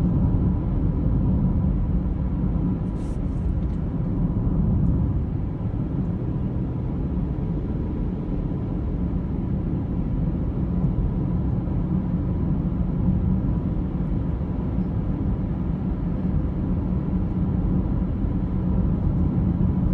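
Steady road rumble of a car driving at a constant speed, heard from inside the cabin. A faint steady high tone runs through it, and there is a faint click about three seconds in.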